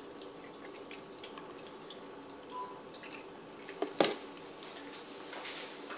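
Faint handling noises: scattered soft clicks and taps, with one sharper knock about four seconds in.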